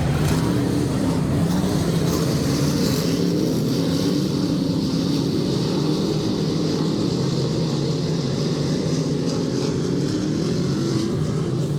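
Several dirt-track race car engines running together on the oval, their pitch rising and falling as the cars go around.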